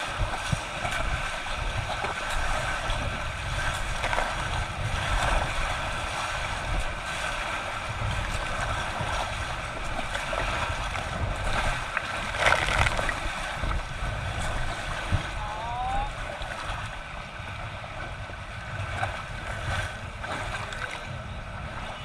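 River water rushing and washing around an inflatable raft, a steady noisy wash with a louder splash about halfway through, over a low gusty rumble of wind on the microphone.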